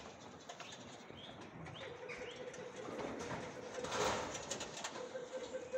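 Birds cooing and chirping, with a few short rising chirps in the first half and a louder brief sound about four seconds in.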